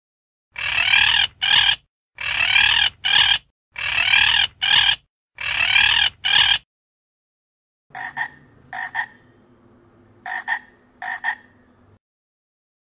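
A parrot squawking four times, each a harsh long squawk followed by a short one. Then a frog croaking in four short calls, two pairs, over a faint low steady background.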